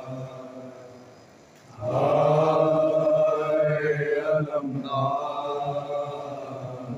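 Male voices chanting a Shia nauha, a mourning lament, through a microphone in long sung lines. A held line fades away, a new loud line begins about two seconds in, and it tapers off near the end.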